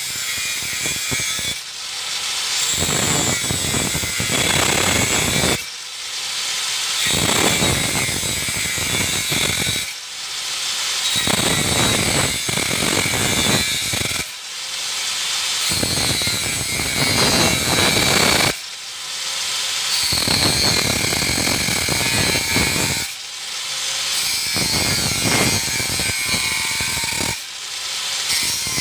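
Angle grinder with a thin 125 mm cutting wheel (0.8 mm, type 42) cutting through metal again and again. Each cut lasts about three seconds, and between cuts the motor whines freely for about a second, about every four seconds.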